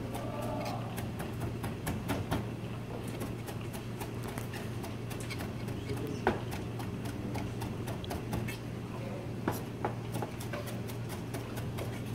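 Chef's knife chopping vegetables on a plastic cutting board: quick, uneven knocks of the blade on the board throughout, over a steady low hum.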